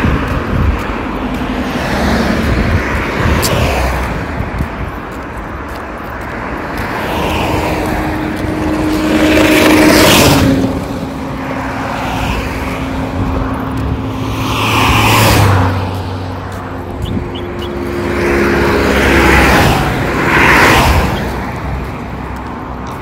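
Road traffic on a dual carriageway: several cars pass one after another, each rising and fading away, the loudest about ten seconds in.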